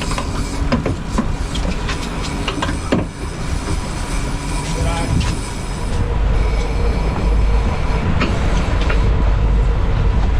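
Center-console boat's outboard engines running under way, with rushing wind noise and scattered clicks and knocks; the low rumble grows louder about six seconds in.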